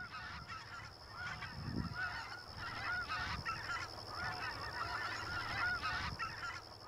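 A large flock of snow geese calling, many short high-pitched honks overlapping into a continuous chorus.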